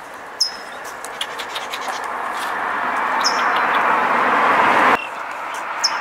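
A noise that swells steadily louder and then cuts off suddenly about five seconds in, with three short, high, falling bird chirps spread through it.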